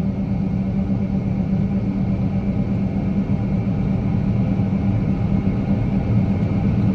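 Heavy farm machine's diesel engine running steadily under load, a constant drone with a strong low hum, growing slightly louder towards the end.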